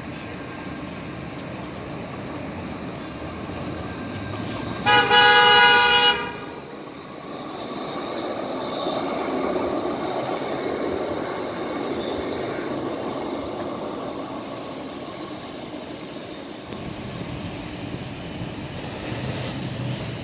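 Bombardier Flexity Freedom light-rail train sounds one steady horn blast of a little over a second, about five seconds in. It then rolls past with a rumble of steel wheels on the street-running track that swells and slowly fades.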